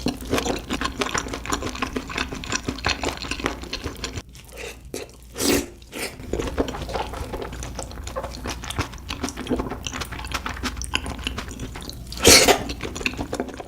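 Close-miked chewing of spicy beef feet: rapid wet mouth clicks and smacks, thinning out briefly about four seconds in, with a louder burst near the end.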